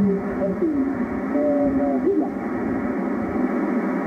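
HF transceiver loudspeaker playing single-sideband receiver audio: a steady, muffled band-noise hiss, with a weak, garbled voice from a distant station in the static during the first two seconds.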